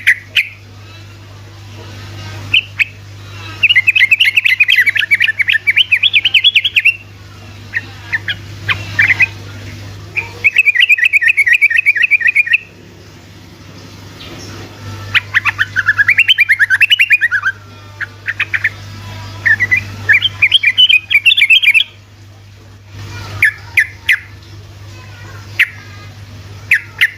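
Yellow-vented bulbul singing: four fast runs of rapid rolling notes, each two to three seconds long, with single sharp chirps between them. A steady low hum runs underneath.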